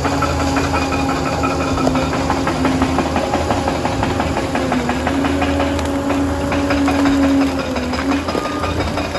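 Liebherr PR 746 crawler dozer's diesel engine running under load, with dense metallic clatter throughout; the engine note sags briefly about five seconds in and again near eight seconds as it takes on more load.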